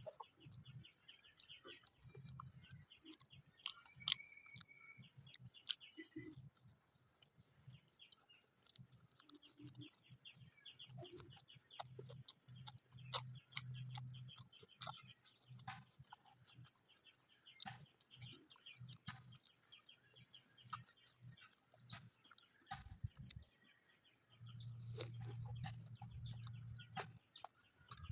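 A person chewing and biting into fried samosas, quiet and close, with scattered crisp crunching clicks between softer mouth sounds. A brief bird chirp comes about four seconds in.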